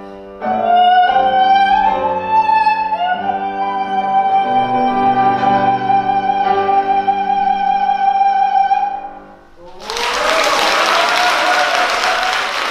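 A soprano holds a long final high note with vibrato over sustained piano chords, ending about nine seconds in; moments later an audience breaks into applause.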